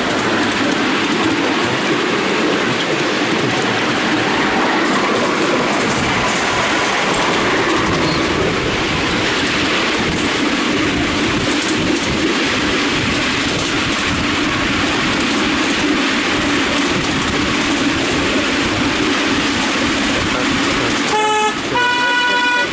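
Ride-on miniature train running steadily along the track under a miniature Intercity 125 Class 43 HST locomotive. Near the end, a short two-note horn sounds, a brief lower note and then a longer higher one.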